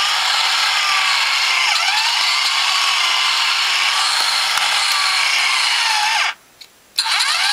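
The small electric motor of a Haynes build-your-own plastic four-cylinder engine model turns its crankshaft, pistons and valvetrain over with a whirring whose pitch wavers up and down. The running is a bit clicky and clunky, which the builder puts down to moulding nodules left on the cam lobes. It cuts out abruptly about six seconds in for half a second, then starts again.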